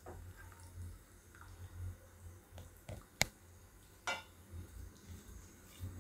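A silicone spatula stirring chocolate syrup in a nonstick pan: faint stirring sounds with a few light clicks of the spatula against the pan, the sharpest about three seconds in, over a faint low hum.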